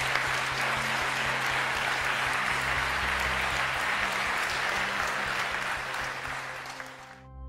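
Audience applauding after a talk, over soft background music; the applause thins and then cuts off abruptly near the end, leaving the music.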